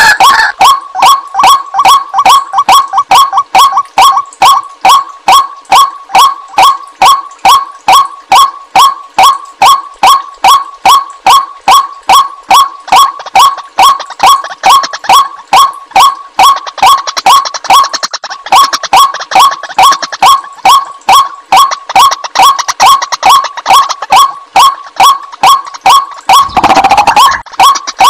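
White-breasted waterhen calls played as a bird lure: a long, even series of short repeated notes, about three a second, with a brief pause about two-thirds of the way in and a harsher, noisier call near the end.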